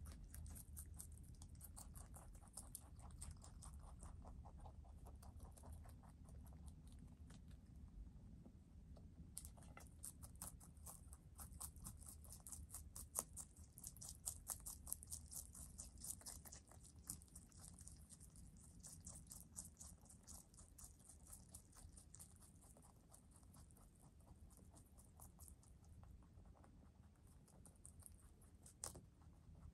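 Two rabbits chewing leafy greens: faint, quick crunching clicks, busiest in the middle stretch.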